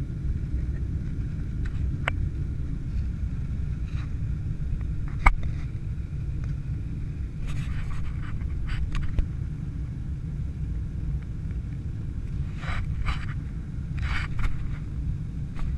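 Steady low roar of jet-engine and airflow noise inside an airliner cabin climbing after takeoff. A sharp click comes about five seconds in, and there are a few short rustles in the middle and near the end.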